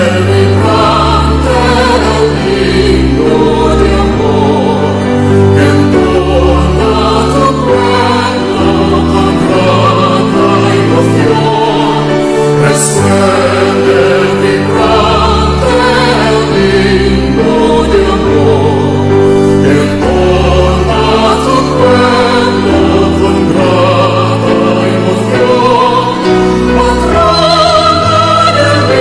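Choral music: a choir singing a hymn in long held chords over a deep, shifting bass.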